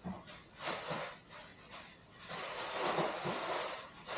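Packaging being handled: a few short rustles and knocks, then a longer, louder rustle in the second half.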